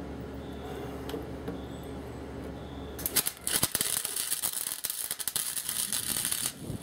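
Wire-feed welder arcing in a crackling burst about three and a half seconds long, starting about three seconds in, as a steel exhaust pipe is tack-welded to a steel flange. Before it, only a steady low hum.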